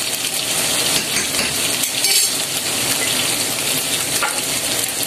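Cubes of pork frying in hot olive oil in a frying pan on full heat: a steady sizzle.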